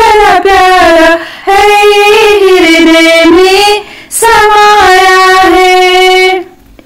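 A woman singing a Hindi devotional bhajan solo, with no instruments heard. She sings in long held, gliding phrases with short breath breaks between them, and stops about six and a half seconds in.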